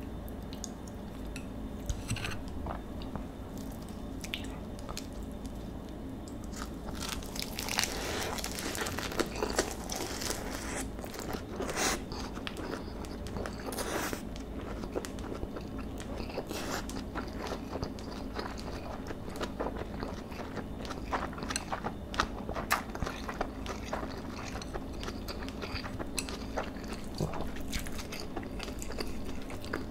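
Close-miked eating of a lettuce wrap of marinated bulgogi beef and rice: irregular crunches of the fresh lettuce and wet chewing clicks, thickest about a quarter to half way through.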